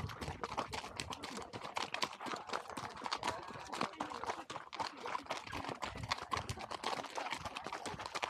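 Horses walking on a gravel road: a dense, irregular run of crunching hoof steps. One horse is barefoot and the others wear hoof boots or shoes.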